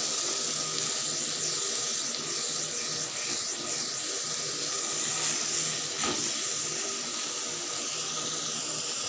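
Chicken and vegetable filling cooking in a pan: a steady hiss with a steady hum under it while it is stirred with a silicone spatula, and one sharp click about six seconds in.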